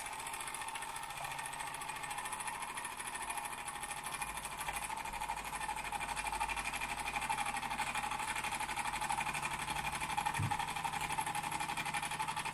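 Wilesco D20 toy steam engine running at speed: a rapid, steady chuffing from its single oscillating cylinder as the flywheel spins, with the boiler water running low. A faint short thump about ten seconds in.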